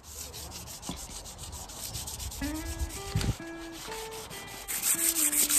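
Fine sandpaper rubbed by hand over a narrowboat's painted roof in quick, repeated strokes. Background music with a simple stepping melody comes in about halfway through and gets louder near the end.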